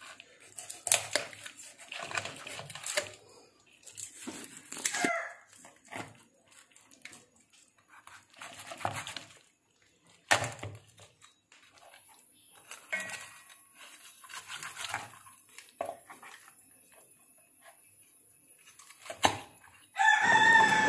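A knife cutting a whole raw chicken in half on a wooden chopping board: irregular knocks of the blade against the board, with wet scraping and tearing of meat and bone between them. A loud pitched call starts in the last second.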